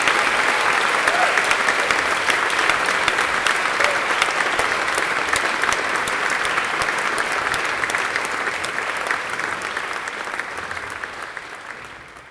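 Audience applauding steadily, a dense patter of many hands clapping, which fades away over the last few seconds.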